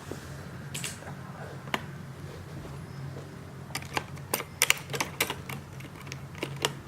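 Clicky mechanical keyboard switches being pressed: a few separate clicks, then a quick run of crisp clicks in the second half.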